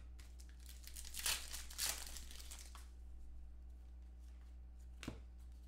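A shiny trading-card pack wrapper being torn open and crinkled by hand, densest in the first three seconds. This is followed by quieter handling and one sharp tap near the end.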